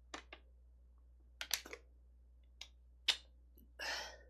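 A few sharp, scattered clicks and taps of small objects being handled, with a short rustle near the end.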